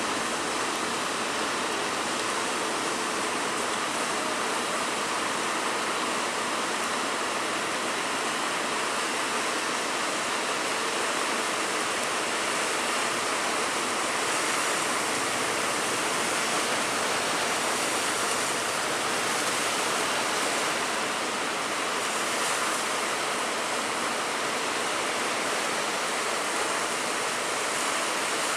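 Big waves breaking in rough, stormy seas: a steady rushing wash of surf with no pauses.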